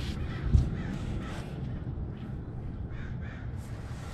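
A single dull metal clunk about half a second in as the truck's rear axle is lowered on a floor jack onto the new leaf spring, with faint cawing bird calls in the background.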